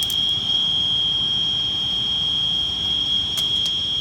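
Electronic refrigerant leak detector giving a continuous high-pitched alarm tone, set off by a large amount of leaked refrigerant in the room.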